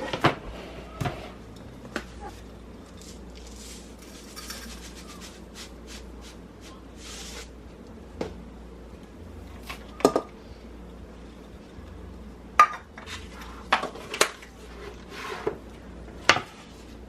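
Kitchen dishes and utensils clinking and knocking at irregular moments during food preparation, with a few short scraping sounds between them.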